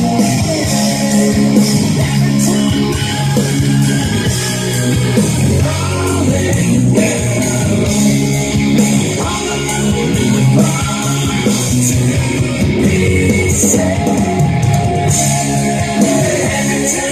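Music: a song with guitar and a singing voice, playing without a break.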